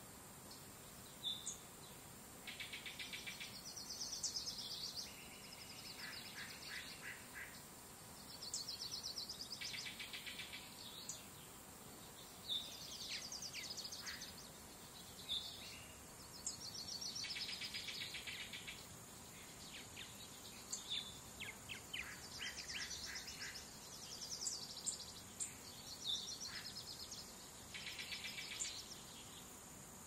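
Songbirds singing: rapid trilled phrases a second or two long, repeated every few seconds, mixed with short sharp chirps. A faint steady hiss runs underneath.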